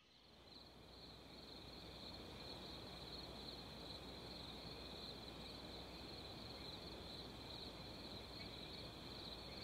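Faint steady high-pitched chirring of an insect chorus, fading in over the first two seconds, over a low steady hum.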